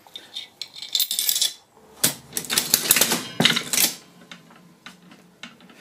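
Metallic clicking and clatter of a 1937 Pace Kitty mechanical slot machine's handle and reel mechanism as it is played, with the governor fan blocked by a rag so the reels spin on without braking. A short burst comes about a second in and a longer rattling run from about two to four seconds in, with lighter clicks after.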